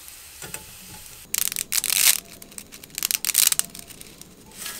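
Bacon and garlic sizzling in a frying pan, then a bundle of dry spaghetti snapped by hand: two loud bursts of crackling snaps and a short one near the end.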